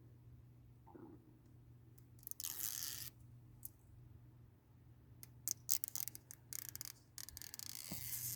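Protective backing being peeled off the adhesive tape on a plastic door sill guard: one short rasping peel about two and a half seconds in, then a longer stretch of crackling peels and clicks near the end.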